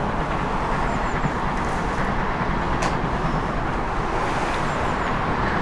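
Steam locomotive approaching along the line, heard as a steady low rumble with no distinct exhaust beat.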